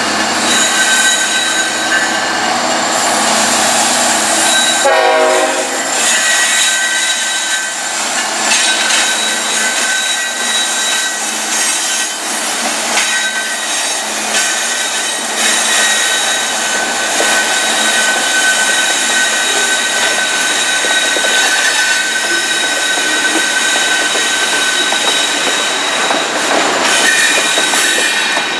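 Freight train cars rolling past with their steel wheels squealing in high steady tones over a continuous clatter of wheels on rail joints.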